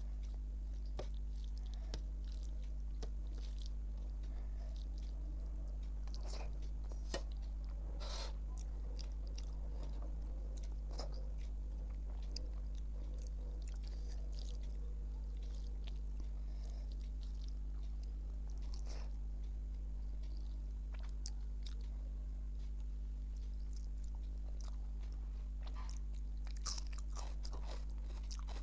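A person chewing a meal of rice, dal and fish close to the microphone, with wet mouth clicks and occasional crunches. A steady low electrical hum runs underneath.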